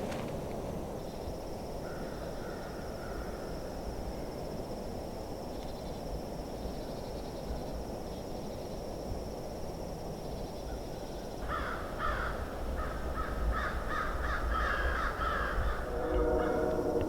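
Gusty wind rushing over the microphone, with crows cawing repeatedly in the last third. A thin, steady high-pitched tone runs underneath.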